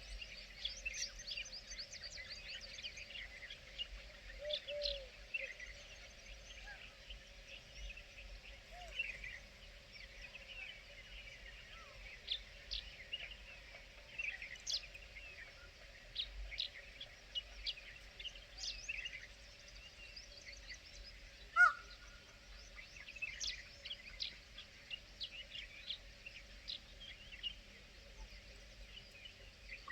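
A chorus of many birds chirping and calling over one another in quick short notes, with one louder, sharper call about twenty-two seconds in.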